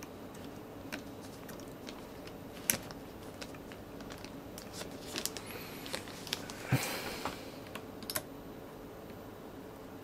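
Small clicks and taps of a metal pick working against the opened iPad 2's housing and loose internal parts, scattered and irregular, with a sharper click a little under three seconds in and a short scrape or rustle about seven seconds in. A faint steady hum lies underneath.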